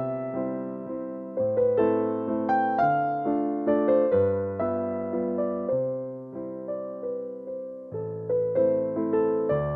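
Background piano music: a steady flow of struck notes, each fading away after it sounds.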